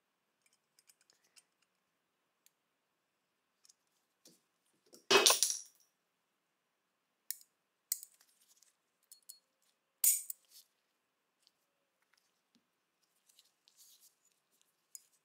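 Small metal clicks and clinks of a Colt Model 1903 pistol frame and its small parts being handled during reassembly, with two louder metallic clacks about five and ten seconds in.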